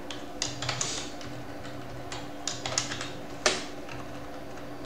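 Computer keyboard typing: keystrokes clicking in short, irregular runs, with one louder key strike about three and a half seconds in.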